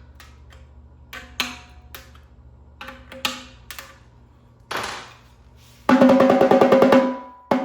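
JDS 'Snarebuka' darbuka snare, a thin darbuka head on a 1.5 mm stainless steel shell, played with the snare wires off and the head just tightened a little. A string of sharp single hits rings with a clear pitch, then a fast roll starts about six seconds in, breaks off briefly and starts again near the end.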